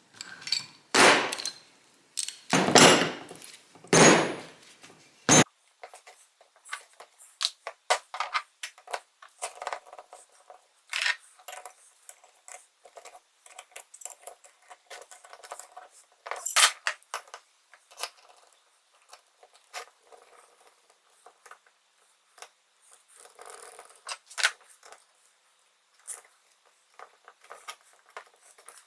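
Metal parts clinking, rattling and scraping as motorcycle wheel-hub and brake parts are handled and taken apart, with four louder rattles in the first five or six seconds and short scattered clinks after that.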